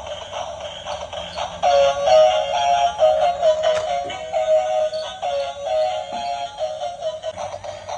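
Tinny electronic music with a synthesized singing melody, played through a small speaker with no bass. A run of quick stepped notes is loudest from about two seconds in until near the end.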